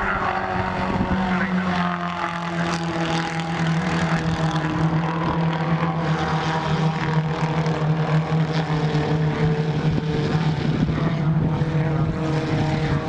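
A pack of Holden Gemini race cars' four-cylinder engines running hard around the circuit, several engine notes overlapping in a steady drone, with pitches slowly rising and falling as the cars change speed.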